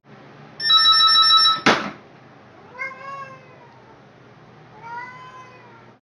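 An electronic ringing tone sounds for about a second and cuts off with a click, then a cat meows twice, each meow rising and falling.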